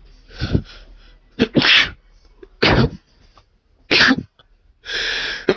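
A person sneezing repeatedly, three sharp sneezes a little over a second apart, in a fit brought on by sniffing chhikni snuff powder. A longer breathy sound near the end leads into the next sneeze.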